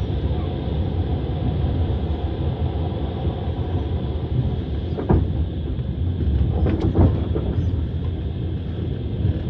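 Passenger train running, heard from inside the carriage: a steady low rumble of the wheels on the rails, with a few sharp knocks at rail joints about five and seven seconds in.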